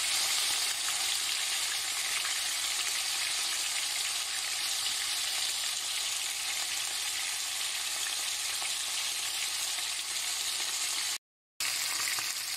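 Cornstarch-coated pork pieces sizzling steadily in hot vegetable oil in a frying pan, browning to a golden crust. The sizzle cuts out for an instant near the end.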